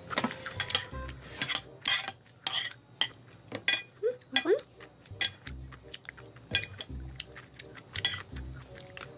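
Metal spoon clinking and scraping against a ceramic plate as salad is scooped up, in a string of short sharp clicks, mixed with chewing.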